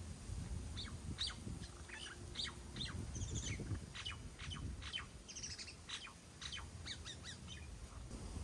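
Small birds chirping: a long run of short, sharp high notes with a couple of quick twittering bursts, over a low rumble.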